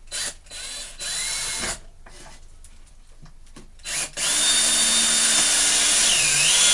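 Power drill driving self-drilling Torx screws into a board: a couple of short trigger pulls with the motor whine rising, then a long steady run of about two and a half seconds, the whine sagging briefly near the end under load.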